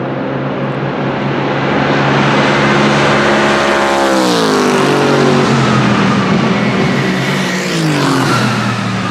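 Bentley Continental GT3's twin-turbo V8 racing engine at full throttle as the car approaches and passes, its note dropping in pitch about four to five seconds in, with tyres hissing through spray on the wet track. A second falling engine note follows near the end.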